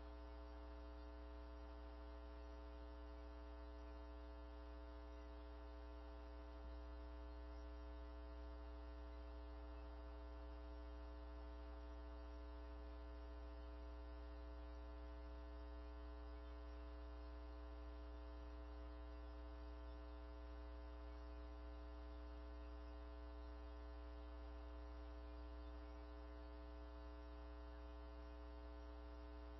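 Steady electrical mains hum with a buzz of many evenly spaced overtones and no other sound, a little louder from about seven seconds in.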